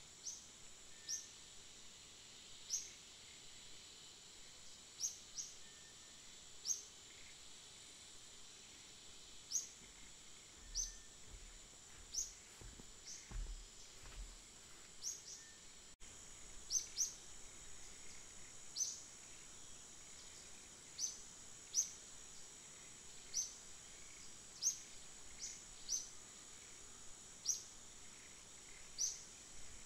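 Forest ambience: a steady high-pitched insect drone with short, sharp high chirps repeating every second or two.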